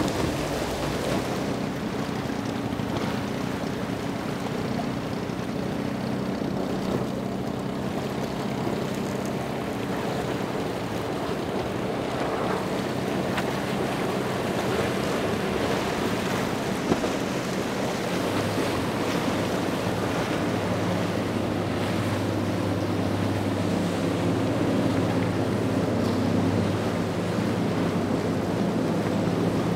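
Motorboat engines running at speed with the rush of bow spray and wake, and wind buffeting the microphone. A deeper engine note comes in a little past halfway through.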